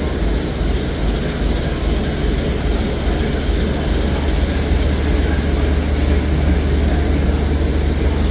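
Steady hissing roar from standing steam locomotive 34072 '257 Squadron', a Southern Railway Bulleid Battle of Britain class Pacific, with a continuous low rumble underneath.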